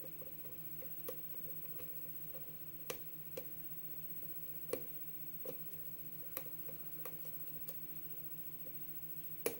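Small, irregular metallic clicks and ticks from a steel lock pick working the pin stack of a five-pin Euro cylinder under light tension: single-pin picking, with pins being probed and set. A faint steady low hum runs underneath.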